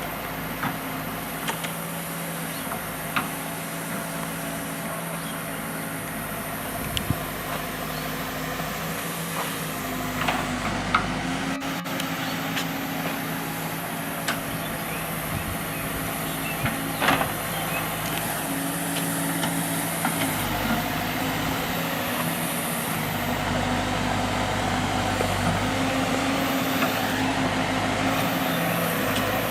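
Diesel engine of a heavy earthmoving machine running steadily, with scattered sharp clanks and knocks. It grows louder in the last third.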